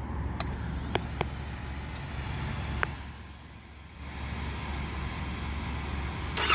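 Honda Rebel 500's parallel-twin engine idling with a steady low hum. It dips briefly about halfway through, with a few sharp clicks, and a cluster of clicks comes near the end.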